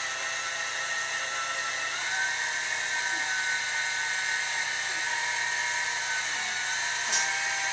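Meade LX200R telescope's drive motors whining steadily as the fork mount slews during sensor calibration, the pitch stepping up about two seconds in. A brief tick near the end.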